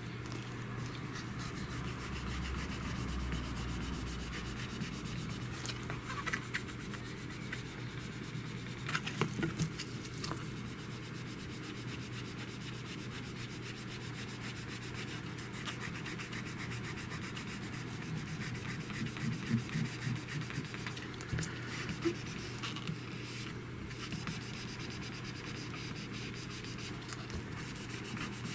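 Rubbing and light scraping on a phone's screen protector as it is pressed and smoothed to push out trapped air bubbles, with scattered small clicks over a steady low hum.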